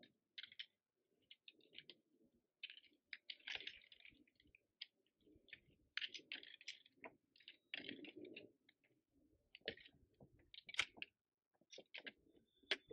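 Faint, irregular crunching footsteps on loose broken rock, with sharp clicks of trekking-pole tips striking stone.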